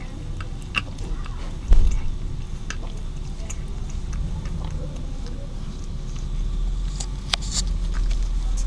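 Calico cat lapping milk from a plastic bowl: a run of small, irregular wet clicks, with one louder thump a little under two seconds in.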